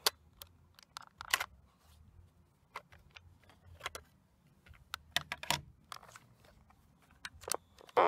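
Plastic clicks and knocks of a compact cassette being handled and lifted out of the open deck of a Sony TCS-300 cassette recorder: a sharp click at the start, then scattered light clicks and rattles.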